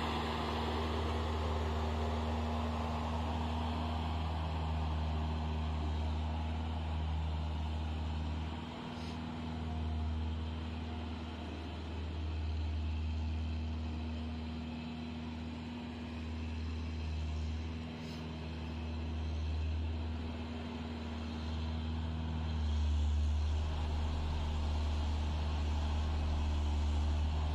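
Case double-drum road roller's diesel engine running steadily as the machine works over loose fill soil: a low, even hum with a few engine tones above it. It grows a little louder near the end as the roller comes closer.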